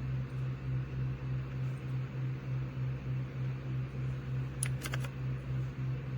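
Steady low mechanical hum, like a fan or motor, pulsing about three times a second, with a quick run of three sharp clicks near the end.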